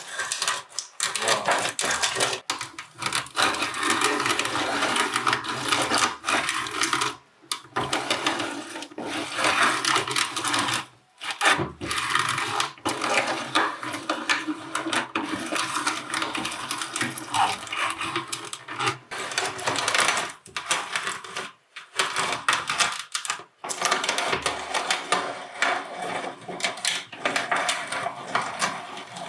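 Meat grinder grinding cherries: a steady motor hum under dense crackling and clattering, stopping briefly several times.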